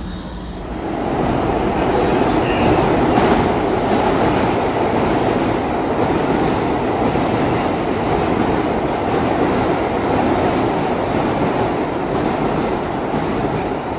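New York City subway train running through the station at speed on the far express track without stopping: a steady, loud rumble of steel wheels on the rails that swells about a second in and holds.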